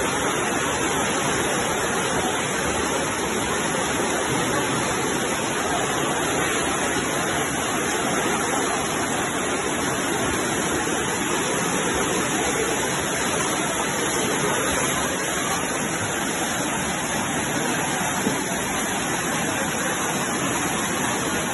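Rainwater floodwater rushing down a street in a fast, churning torrent: a steady, even rush of water.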